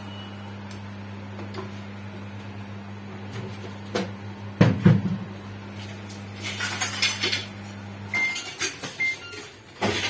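Samsung microwave oven running on test with a new magnetron, its high-voltage transformer giving a steady mains hum, a sign that the oven is heating. A few knocks and a loud clatter come about halfway; the hum stops about 8 s in, followed by two short beeps and more handling clatter.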